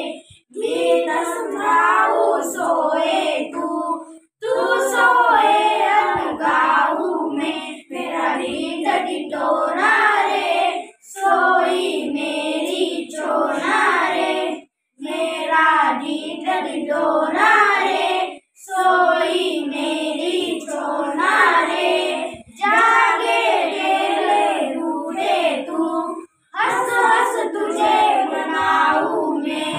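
Four children singing together unaccompanied, a song in phrases of a few seconds with short breaths between them.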